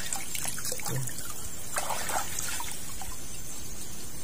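River water trickling and splashing off a wet fishing net as it is hauled up out of the water, with a few louder splashes about two seconds in.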